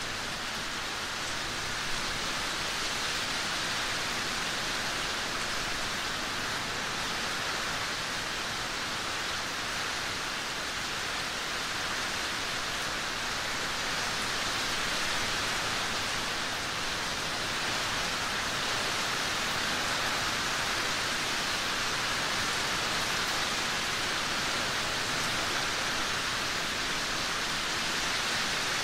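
Steady rain: an even, unbroken hiss of falling rain, with no single drops standing out.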